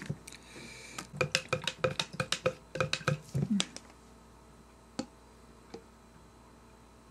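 A spoon clinking repeatedly against a plastic measuring jug as green smoothie is stirred, several quick knocks a second for a couple of seconds. Then it goes quiet, with two faint taps during the pour.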